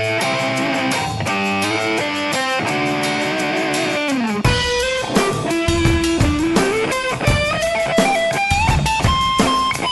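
Background rock music: guitar playing, with a sliding lead guitar line and drums coming in about four and a half seconds in.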